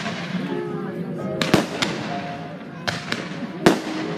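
Aerial display fireworks going off: about six sharp bangs in irregular succession, the loudest near the end.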